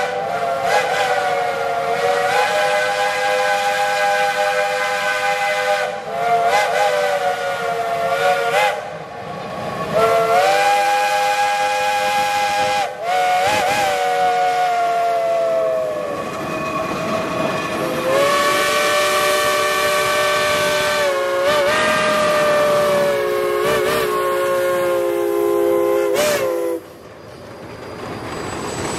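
Chime steam whistles of several geared logging locomotives (Shays and a Climax) blowing together in a string of long blasts, several chords overlapping. Each blast sags and wavers in pitch as it opens and closes. The whistling cuts off suddenly about 27 seconds in, leaving steam hissing.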